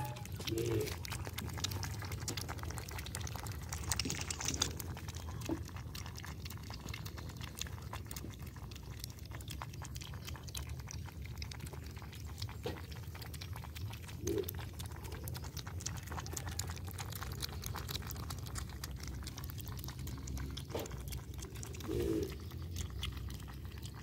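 Several puppies lapping milk from a metal bowl: a dense, irregular run of quick wet licking clicks over a steady low rumble, with a few brief soft low sounds scattered through.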